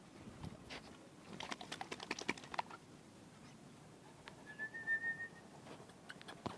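A single short whistled note, held steady for under a second about halfway through. Before it, about two seconds in, comes a quick run of light clicks and scuffs.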